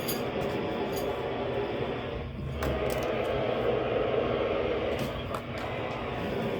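Weather radio receiver hissing with static under poor reception, with scattered crackles and no clear voice coming through; the listener suspects the thunderstorms are causing the interference.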